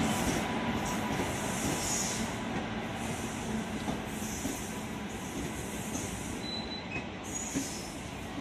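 Express train's passenger coaches rolling past at speed: a steady rumble of wheels on rail, with a high hiss that comes and goes every second or so, slowly fading as the train draws away.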